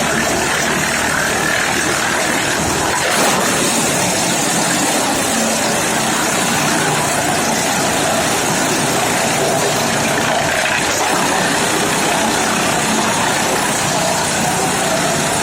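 Wood chipper machine running steadily, a loud, even mechanical noise, with one brief knock about three seconds in.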